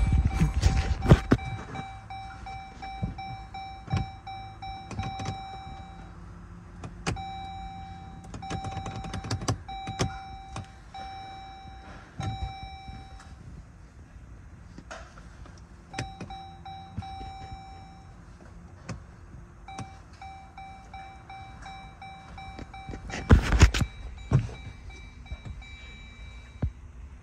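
Dashboard warning chime of a 2012 Jeep Grand Cherokee with the ignition on and the engine off: a steady mid-pitched tone sounding in long runs with pauses between. Clicks are scattered throughout, with heavier knocks and rumbles in the first second and again about 23 seconds in.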